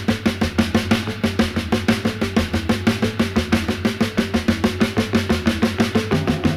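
Music with fast, driving drums: a quick steady beat of drum hits over a bass line and a simple moving melody.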